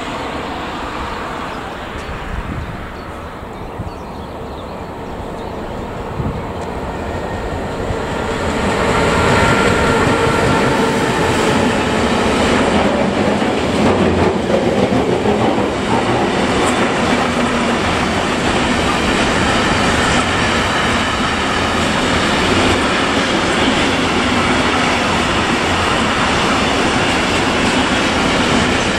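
Long intermodal freight train loaded with lorry trailers approaching and then passing close by: the sound builds up to about nine seconds in, then the wagons run past with a steady rumble and rattle of wheels on the rails, with faint ringing tones over it.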